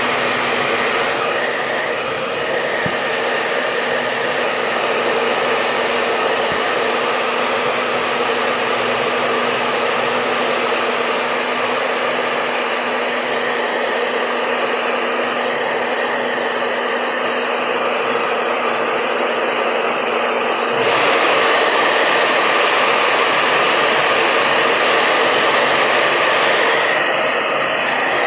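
Hair dryer blowing steadily with a hum, heating the iPad's screen to soften its adhesive. It turns a little louder about three-quarters of the way through, then eases back just before the end.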